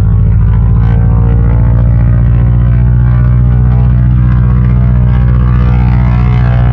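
North American SNJ-6 Texan's Pratt & Whitney R-1340 nine-cylinder radial engine running steadily, a loud, deep, even rumble with a fast pulsing beat.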